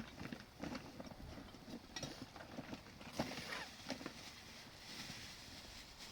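Irregular knocks and clicks of hard objects striking one another, with some scraping in between.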